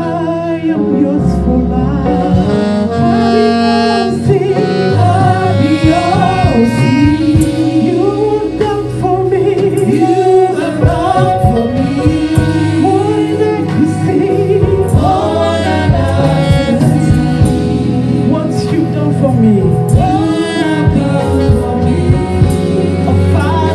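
Live gospel worship song: a woman singing lead with a choir joining in, over band accompaniment with sustained low notes.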